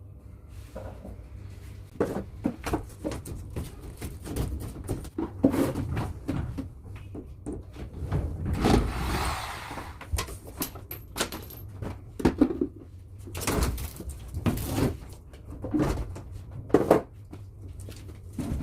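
Wallpaper being cut loose with a knife and pulled off a partition wall: irregular knocks, scrapes and rustling, with a longer rasping noise about nine seconds in.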